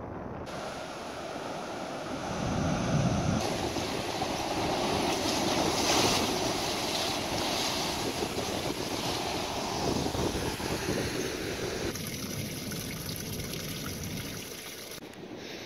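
Ocean surf washing and surging against rocks, a steady rushing wash, with wind buffeting the microphone. The sound changes abruptly a few times. It turns quieter near the end, where a small stream of water trickles down a sandy cliff.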